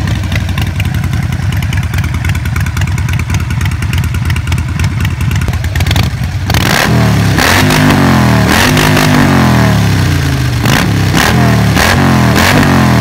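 Harley-Davidson 48 Sportster's 1200 cc V-twin idling with a deep growl, then, about six and a half seconds in, revved in a string of short throttle blips, each rising and falling in pitch.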